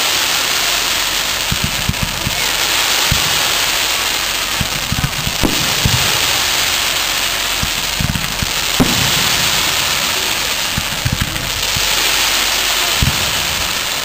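Aerial fireworks going off: a string of dull, low booms at irregular intervals over a continuous crackling hiss that swells and fades.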